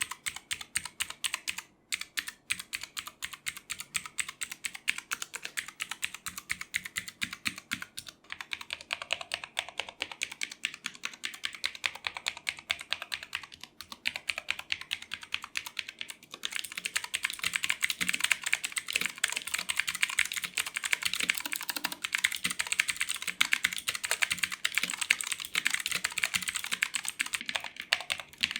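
Fast typing on an Armageddon MKA-61C mechanical keyboard with clicky Otemu Blue switches, a rapid run of key clicks and clacks. It is the keyboard's typing sound test, before and after its switches were lubed and cloth dampening was added. About sixteen seconds in, the clicking turns brighter and denser.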